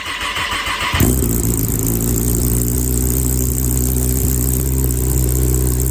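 Kawasaki ZX-10R's inline-four engine idling steadily, starting about a second in after a brief hiss. The engine runs evenly, back together after the repair.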